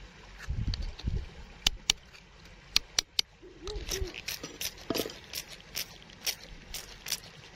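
A wooden stick prying at gravel and stones in wet ground, making irregular sharp clicks and scrapes, with a couple of low thumps about half a second to a second in.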